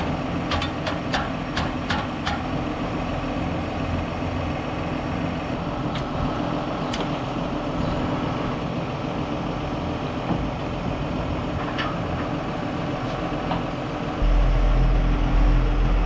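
John Deere tractor's diesel engine idling steadily while a wagon is unhooked, with a few sharp metal clicks and clanks from the hitch and jack. About 14 seconds in the engine sound gets louder and deeper.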